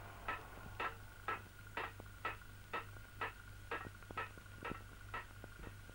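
A clock ticking steadily, about two ticks a second.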